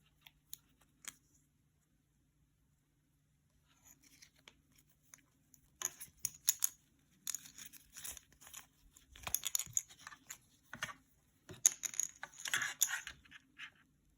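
Watch packaging being unwrapped by hand. A few light clicks are followed by about ten seconds of irregular handling and tearing noise, loudest in the second half.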